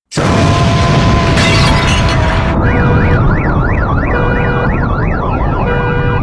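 A sudden loud burst of rushing noise lasting about two and a half seconds, then a siren yelping rapidly up and down, about two to three sweeps a second, over a low steady rumble.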